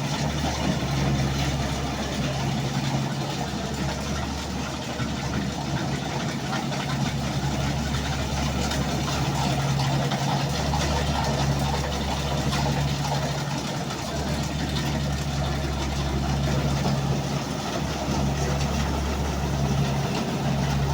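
Engine running steadily at an even speed, a constant low hum over a broad mechanical noise.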